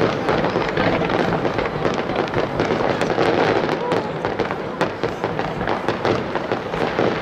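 Aerial fireworks bursting: a dense, unbroken run of bangs and crackling from shells exploding in quick succession.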